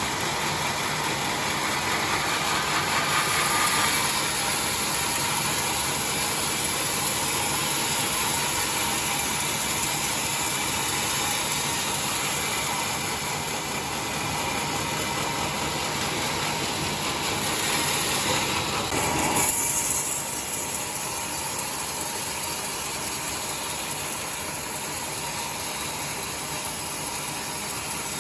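Sawmill saw running steadily as it rips a log into 2 cm boards, with a louder surge about nineteen seconds in, after which it runs a little quieter.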